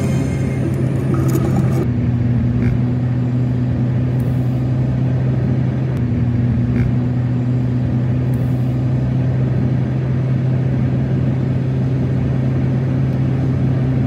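Steady drone inside a car cruising at highway speed on a wet road: a constant low engine and drivetrain hum over a hiss of tyre and road noise.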